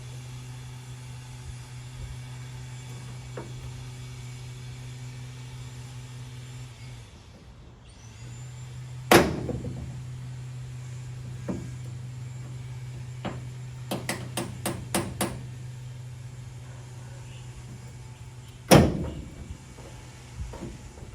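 Hard plastic knocks and clicks as an old tail light housing is worked loose from a pickup's bed pillar: two loud knocks about nine and nineteen seconds in, and a quick run of about six clicks in between. A steady low hum runs underneath.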